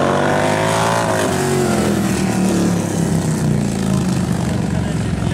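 Large twin-cylinder bagger motorcycles racing close together, their engines rising in pitch under acceleration in the first second, then settling to a lower, wavering note through the corner.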